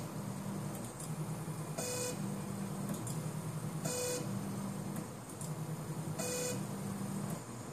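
SLA 3D printer stepping its build platform layer by layer: about every two seconds a short beep, then the platform's lift motor hums low for a second or so as it makes the mould-release move.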